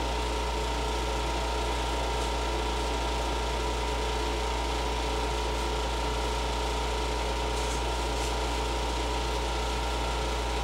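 Steady mechanical hum: a deep drone with a thin constant whine over an even hiss, holding level without change.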